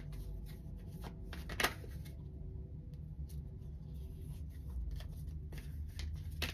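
A tarot deck being shuffled by hand, with a card drawn from it: soft scattered card snaps and riffles, one louder snap about one and a half seconds in, over a low steady hum.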